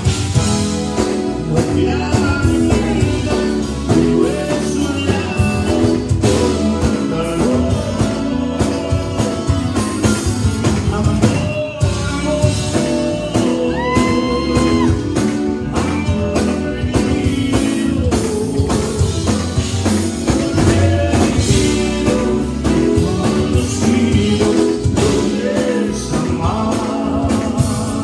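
Live Tejano conjunto band playing through a PA: button accordion, electric guitars, bass and drums under male and female vocals.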